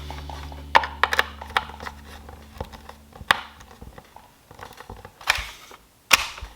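Irregular clicks, taps and rustles of small parts and tools being handled, with a low steady hum through the first half.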